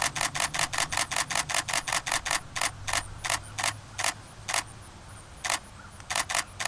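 Canon EOS 80D DSLR shutter and mirror firing in continuous burst mode, about seven frames a second for the first two and a half seconds. After that it fires slower single frames and a few quick pairs.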